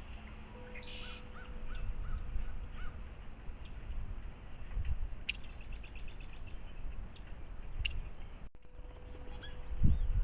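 Wild birds calling: a run of about five short, harsh calls in quick succession near the start, then quick high-pitched ticking notes. Low rumbling thumps break in, the loudest near the end.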